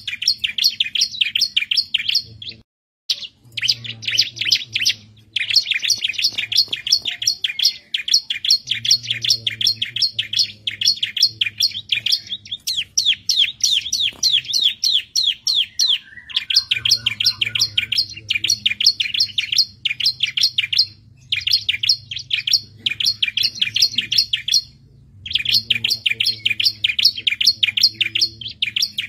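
Bar-winged prinia (ciblek) singing vigorously: long strings of fast, high chirping notes broken by short pauses, with a lower run of notes about halfway through.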